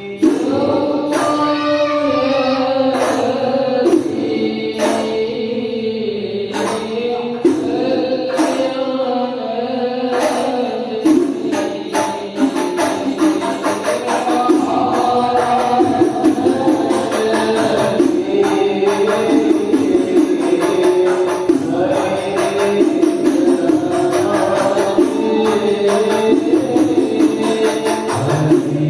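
Sholawat music: voices singing a devotional melody together over hand-struck frame drums with jingles. The drumming is sparse at first and becomes a busier, denser beat about ten seconds in.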